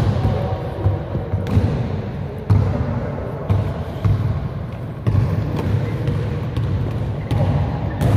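A basketball dribbled on a gym floor: irregular bounces roughly once a second, echoing in a large indoor gym.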